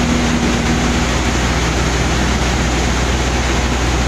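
Tractor-driven Govind thresher running under load as crop stalks are fed into its hopper: a loud, steady rushing drone over a low, even engine hum.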